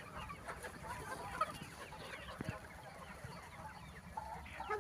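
A flock of chickens clucking, many short overlapping calls, faint.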